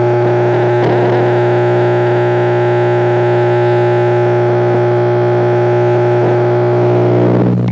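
Steady pump-motor hum with several overtones, picked up through the water by a microphone submerged in the aquaponics fish tank. It breaks off right at the end as the microphone comes out of the water.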